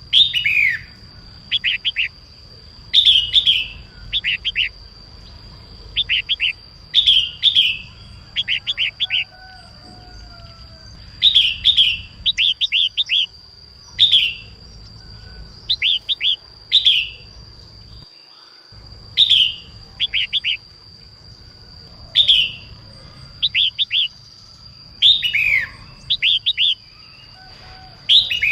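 Female red-whiskered bulbul calling: short, sharp notes sweeping downward, in clusters of two to four every second or two, over a steady high-pitched whine.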